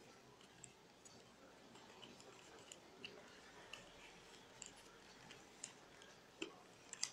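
Faint, scattered clicks and rustles of rolled paper tubes being woven in and out of upright paper-tube stakes, with a couple of louder taps near the end.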